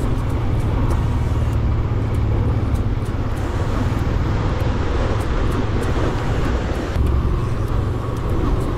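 Motorcycle riding along a rough dirt-and-gravel road: the engine runs steadily under a constant low rumble of wind and tyres on the loose surface.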